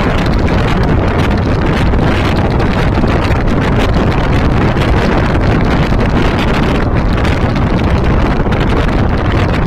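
Loud, steady wind buffeting on the microphone, a low rumble that covers everything else.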